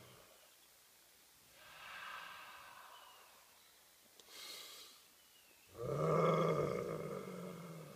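A man's forceful voiced exhalations in a qigong claw exercise: a softer breathy exhale about two seconds in, a short hiss of breath halfway, then a loud guttural roar-like exhale that starts abruptly near three-quarters through and fades over about two seconds.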